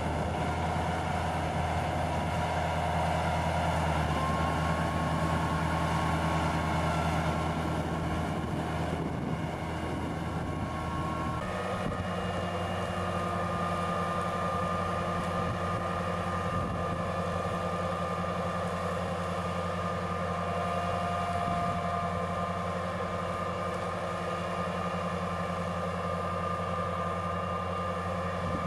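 Heavy farm machine engine running steadily, with a steady whine above the engine note; about eleven seconds in, the engine's pitch shifts and then holds steady again.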